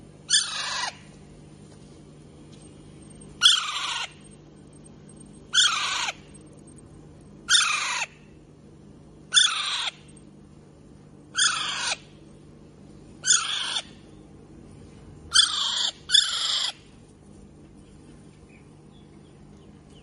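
Young Alexandrine parakeet calling: a short call falling in pitch, repeated nine times about every two seconds, the last two close together.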